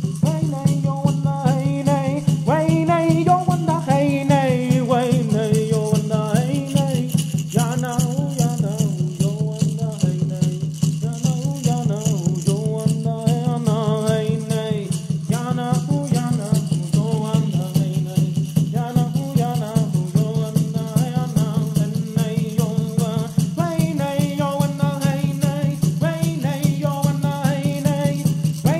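Chanted singing over a peyote rattle shaken in a fast, even pulse, with the low steady boom of a water drum underneath.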